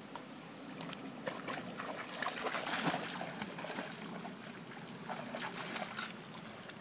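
A Weimaraner wading through shallow water, its legs splashing and sloshing with each step, over a steady trickle of flowing water. The splashing is heaviest about two to three seconds in.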